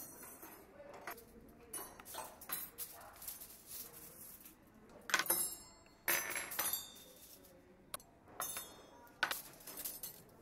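Dishes, glasses and cutlery clinking and clattering: a run of irregular sharp clinks, each with a short ring.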